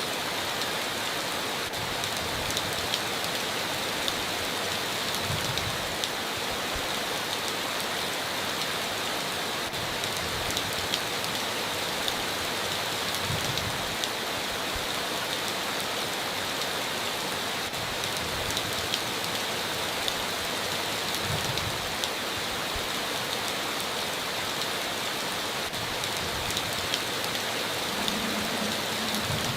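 Steady heavy rain on a tin roof, an even rushing hiss with individual drops ticking through it.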